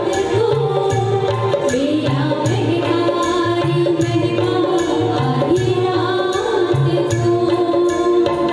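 Two women singing a duet into microphones over backing music with a steady percussion beat.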